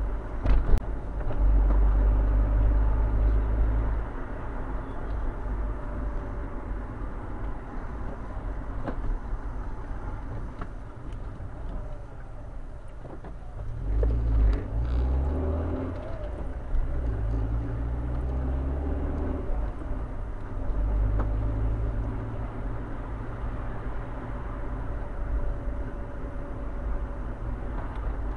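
Rover 45's engine and tyre noise heard from inside the cabin while driving. About halfway through, the engine note climbs in steps as the car pulls away from a roundabout and changes up through the gears.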